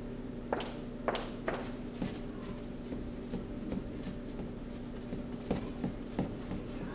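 Scattered short scrapes and taps of a paintbrush and palette knife working on a painted board, over a steady low electrical hum.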